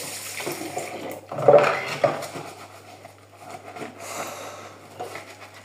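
Washing up by hand at a kitchen sink: tap water running, dishes and utensils clinking and knocking against each other, with one louder clatter about a second and a half in.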